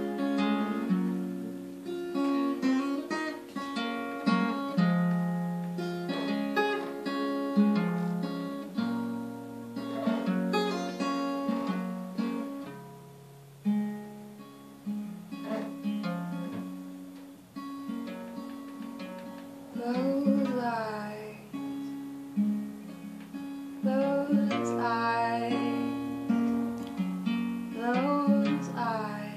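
Solo steel-string acoustic guitar played with separate picked notes and chords. A woman's voice sings briefly about two-thirds of the way in and again near the end.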